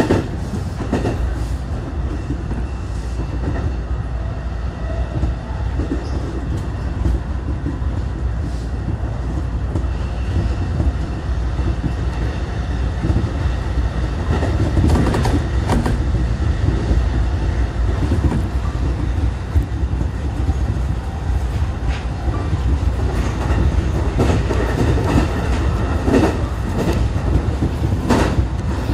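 Electric commuter train running at speed, heard from inside the front car: a steady low rumble of wheels on rails, with a few sharper clacks over rail joints about halfway through and near the end.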